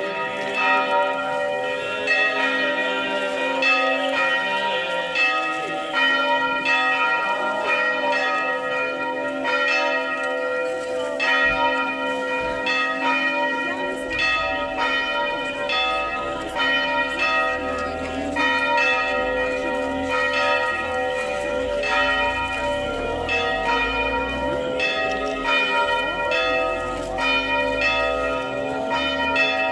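Several church bells ringing on and on, overlapping ringing tones renewed by fresh strokes about once a second.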